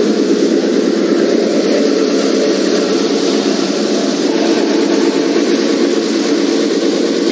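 An engine idling steadily, an even drone that holds the same pitch throughout.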